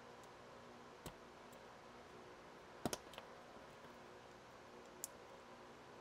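Small sharp clicks of a hand tool and metal contact against a plastic Anderson Powerpole housing as a contact is pushed in: one about a second in, a louder double click near the middle, and one more near the end, over a faint steady hum.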